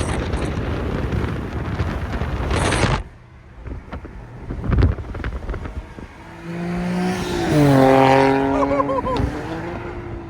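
Car engine and exhaust while driving. There is a loud rush of noise for about the first three seconds, then a quieter stretch with a few sharp ticks. About six seconds in, an engine note comes up, drops in pitch and holds steady.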